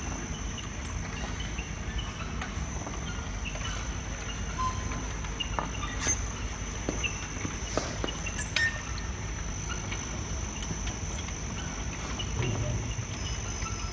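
Bottle-labelling machine's conveyor running with a steady hum and a constant high whine, while glass bottles on the belt give a few sharp clinks, mostly around the middle.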